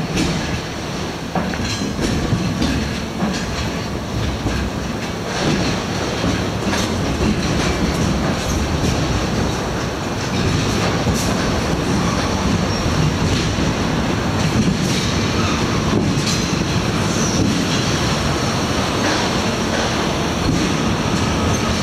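Loud rail noise of passenger carriages rolling slowly onto a train ferry. The steel wheels clatter and knock over track joints, with squealing from the wheels on the rails.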